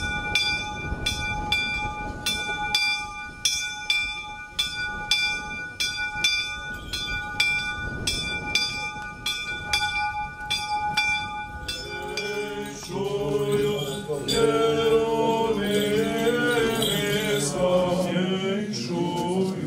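Single church bell of a small Orthodox chapel rung rapidly, about two strikes a second, each stroke ringing on at several fixed pitches; about twelve seconds in the bell stops and male voices take up an Orthodox liturgical chant.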